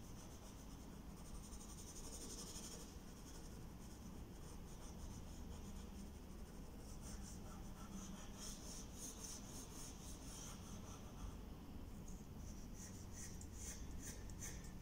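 Pencil scratching across drawing paper on an easel as a portrait is sketched: a few longer strokes, then quicker short repeated hatching strokes near the end.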